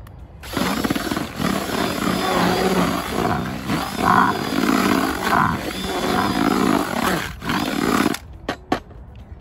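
Cordless drill with a mixing whisk spinning in a bucket, churning wet groundbait. It starts about half a second in, runs for about eight seconds, then stops, followed by a couple of light knocks.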